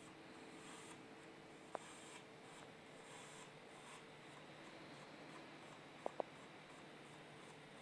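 Faint, steady electronic hum from an HP Omen laptop running on battery: the odd noise it makes while unplugged, which stops when the mouse is moved. A sharp click comes about two seconds in, and a quick double click around six seconds.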